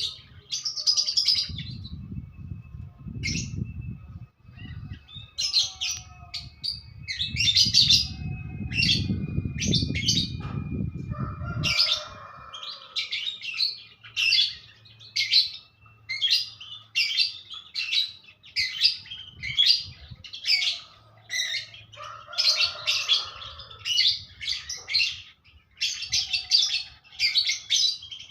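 Small songbird singing in quick bursts of high chirps and trills, phrase after phrase with short gaps between. A low rumble runs under the song for about the first twelve seconds, then stops.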